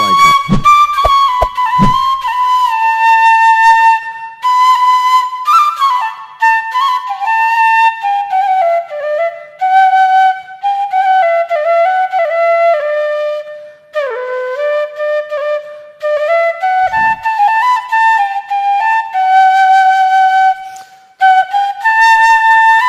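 Background music: a solo flute melody playing slow stepping phrases of held notes.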